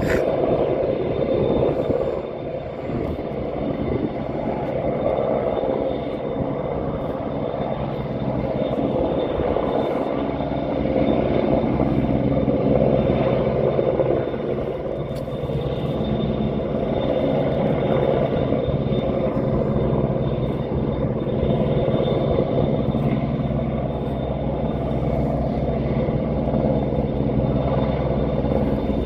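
AgustaWestland AW101 helicopter hovering with a load slung below on a wire: a steady rotor and turbine drone that swells and eases slightly, with a thin high whine held over it.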